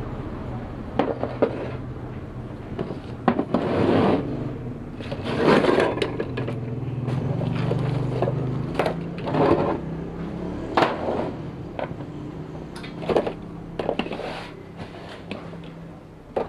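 Metal parts and hand tools being worked on an outboard engine: irregular clinks, knocks and short scraping or rubbing sounds, over a steady low hum.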